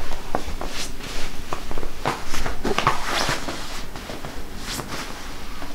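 Synthetic shell fabric of a thick Bears Rock FX-503W envelope-type sleeping bag rustling and swishing in irregular strokes as it is rolled up tightly and pressed down by hand.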